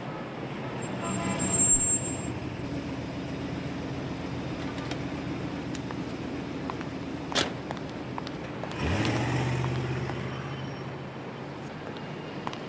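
Car sounds: a short high squeal about two seconds in, a sharp knock a little past seven seconds, then an engine revving up sharply about nine seconds in and settling into a steady run that slowly fades.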